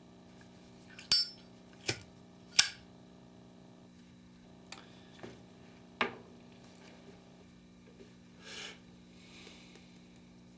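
Small metal objects being handled and set down: a series of sharp clicks and clinks, three close together early and another about six seconds in, with a short rustle near the end.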